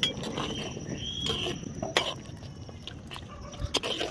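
Metal ladle stirring curry in a clay pot, giving a few sharp clinks and knocks against the pot's side. Short high chirps and a thin steady high tone sound in the background.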